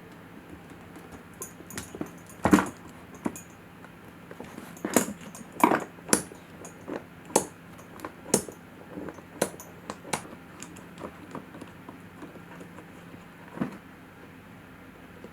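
Metal tools and small metal parts clinking and tapping during brake caliper work, a dozen or so irregular strikes, the loudest about two and a half seconds in.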